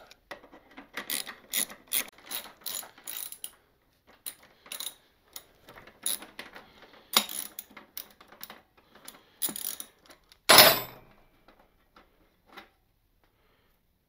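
Socket ratchet clicking in quick runs as it backs a 14 mm nut off a drum-brake rod, with one louder knock about ten and a half seconds in. Near the end only a few faint ticks are left.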